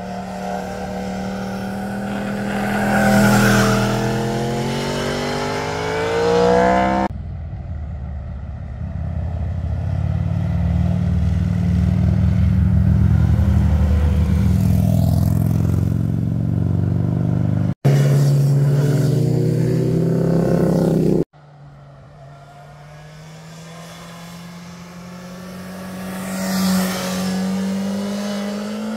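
Motorcycle engines passing one after another through hairpin bends, each one getting louder as it approaches and sweeping down in pitch as it goes by. A touring trike's engine runs steadily in the middle stretch. The sound changes abruptly three times as one pass gives way to the next.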